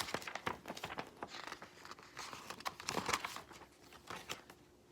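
Paper and plastic packaging crinkling and rustling in irregular bursts as the contents of a snack box are handled, dying down near the end.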